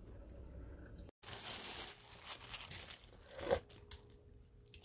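Faint crinkling and rustling of a disposable plastic glove as a hand handles soaked, salt-cured perilla leaves in a stainless steel bowl. A brief, louder squeak comes about three and a half seconds in.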